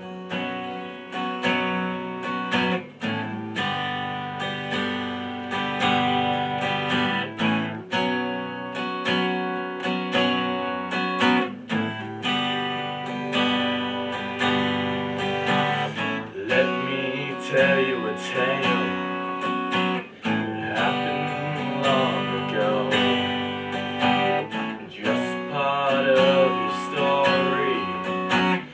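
Steel-string acoustic guitar strummed in a steady rhythm, changing chords every second or two.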